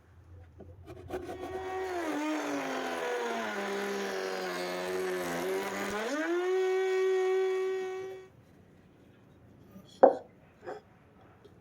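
Table-mounted budget router with a male tongue-and-groove bit, running up to speed with a high whine. Its pitch sags as it cuts along a wooden board and recovers once the cut ends. It stops about eight seconds in, and a single wooden knock follows near the end.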